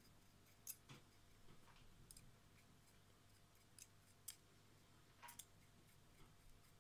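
A handful of faint, scattered clicks and light scrapes from metal tweezers teasing out the cotton wick ends on a rebuildable atomizer. Otherwise near silence.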